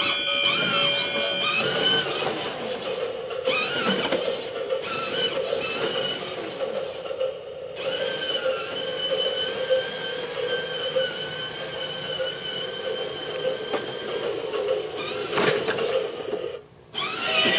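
A model train running: a steady whine that shifts up and down in pitch now and then and cuts out briefly near the end.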